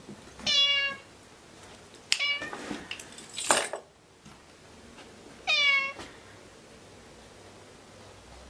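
Domestic cat meowing: two clear meows about five seconds apart and a shorter one about two seconds in. A brief noise without pitch, around the middle, is the loudest moment.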